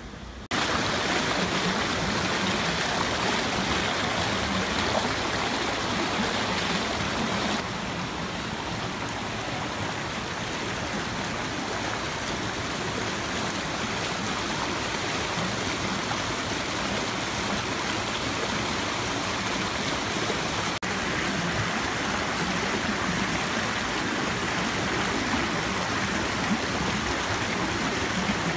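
Shallow forest stream flowing, a steady rush and ripple of running water.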